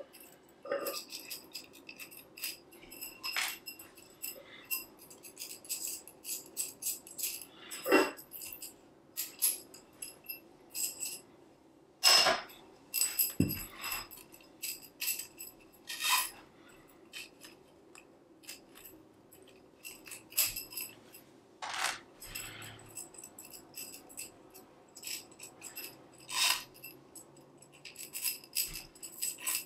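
Tensegrity struts and tendons being handled as the tendon joints are worked loose: irregular clicks, taps and rattles, some knocks leaving the tubes ringing briefly. The loudest knocks come about 8 and 12 seconds in.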